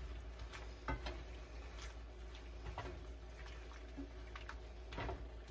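A spoon stirring food in a pan, giving irregular light clicks and scrapes against the pan, over a steady low hum.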